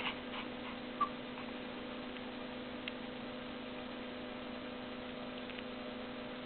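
Steady low electrical hum with a few faint clicks, and one brief high-pitched squeak about a second in.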